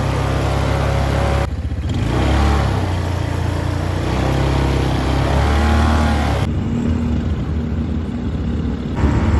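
A motor vehicle's engine running and revving, its pitch rising and falling, with abrupt changes in the sound a few times.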